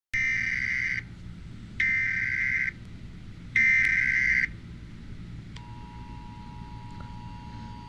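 Emergency Alert System SAME header: three short bursts of data tones, each about a second long. About five and a half seconds in, the steady two-tone EAS attention signal starts, which opens the alert.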